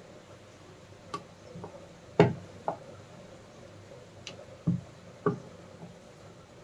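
About half a dozen sharp wooden knocks and taps, the loudest a little over two seconds in, as a wooden rolling pin is handled and set down on a wooden rolling board while rolling out puri dough.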